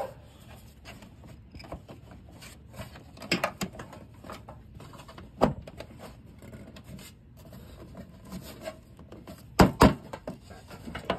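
Hands working plastic dryer front-panel parts, pressing a part onto its locating pins: light rubbing with a few sharp plastic knocks, the loudest two close together near the end.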